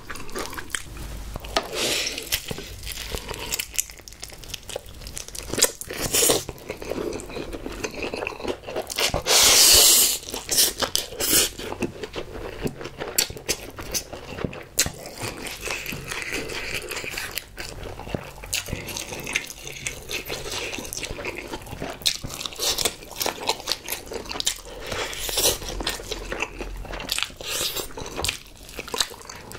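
Close-miked eating: crunchy bites and chewing of sauce-coated fried chicken and spicy stir-fried ramen noodles, a dense run of crisp crackles and wet mouth sounds. About ten seconds in there is one louder, longer burst of noise.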